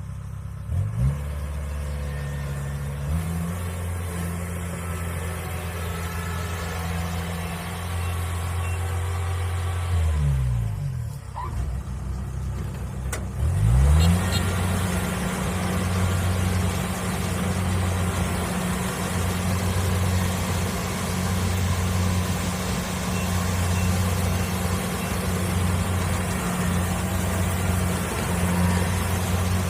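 Kubota DC70 Plus combine harvester's diesel engine running steadily, its pitch dipping and rising briefly about ten seconds in and again at about fourteen seconds, after which it runs louder with more rattle from the machine.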